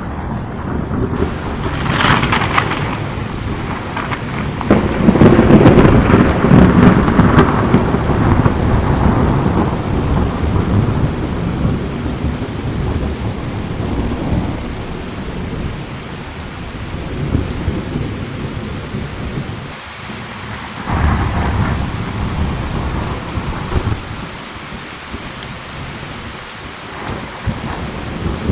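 Thunder over steady rain: a sharp crack about two seconds in, then a long, loud rolling rumble, and another crack and rumble about two-thirds of the way through.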